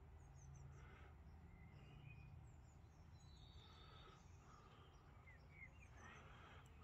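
Near silence: faint outdoor ambience with a low hum and a few faint, distant bird chirps.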